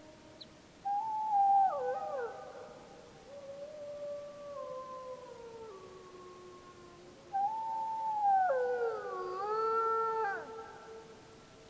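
Several gray wolves howling in chorus, overlapping long howls that glide up and down in pitch. They come in two waves, about a second in and again past halfway, the second louder: pack members answering a pup's howls.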